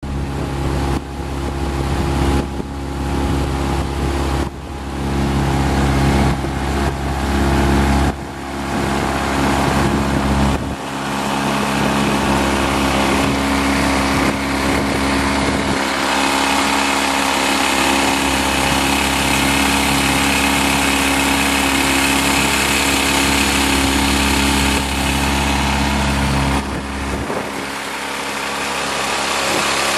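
10 hp Honda four-stroke outboard motor running steadily, pushing a small aluminium boat along, with water rushing past the hull. Wind buffets the microphone in low gusts that cut in and out during the first ten seconds or so.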